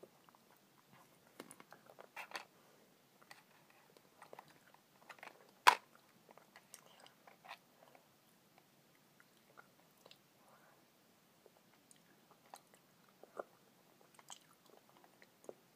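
Quiet chewing of caramel Chocoball chocolate candies, with scattered small clicks and taps from the cardboard candy box being handled; one sharper click comes a little before six seconds in.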